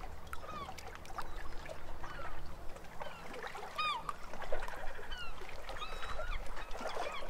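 A flock of birds calling: many short, overlapping calls, each sliding up or down in pitch, coming in loose clusters throughout.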